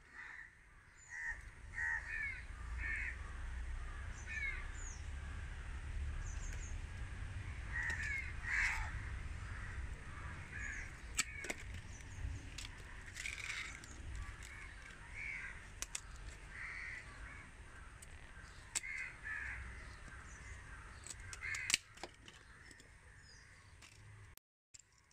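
Birds calling over and over in short calls, over a low rumble, with several sharp clicks scattered through, the loudest near the end.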